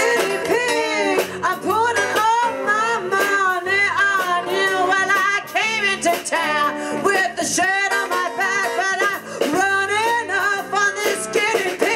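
A woman singing into a microphone with a live band backing her, guitar prominent.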